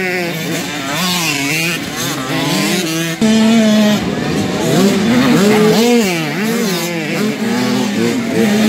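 Several motocross bikes' engines revving up and down as the riders throttle off and back on through a dirt corner, their pitches rising and falling over one another. A steadier engine note joins about three seconds in.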